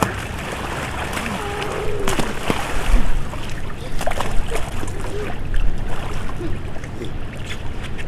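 Swimming-pool water splashing and sloshing as people move and play in it, with short sharp slaps on the water.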